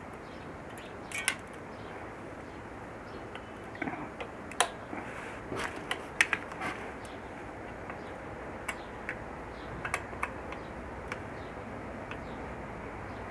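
Scattered small metallic clicks and taps from a hex key working the brake-disc rotor bolts loose on a bicycle wheel, over a steady background hiss.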